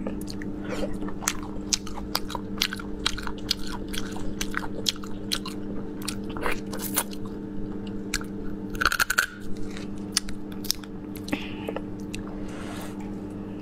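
Close-up eating of snails in chilli sauce: many sharp clicks as the shells are cracked by hand, with wet chewing and sucking, and one louder burst about nine seconds in. A steady low hum runs underneath.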